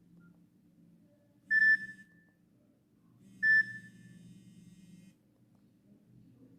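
Nokia E63 phone giving two short, high electronic beeps about two seconds apart, each ringing out briefly.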